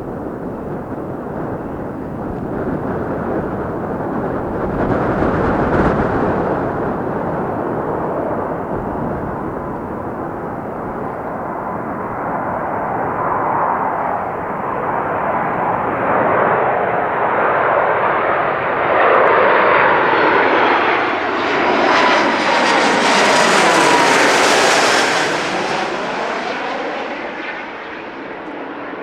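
Fixed-wing aircraft passing close by on the runway, its engine noise building to a peak about three-quarters of the way through, with a whine that falls in pitch as it goes past before fading. Gusts of strong wind buffet the microphone.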